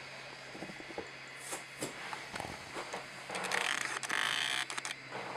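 Handling noises: irregular clicks and light knocks, then a louder scraping, rustling stretch past the middle, over a steady low hum.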